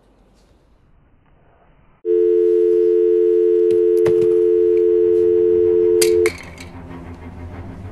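Telephone dial tone: a steady two-note tone that starts suddenly about two seconds in and cuts off sharply about four seconds later, with a few clicks over it.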